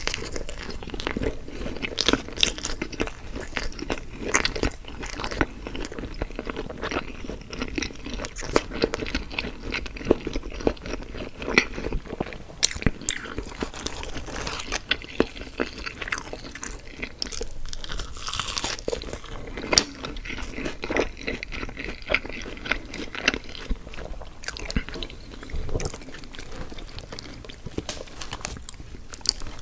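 A person chewing and biting crunchy food close to the microphone, with many sharp, irregular crunches and wet mouth sounds.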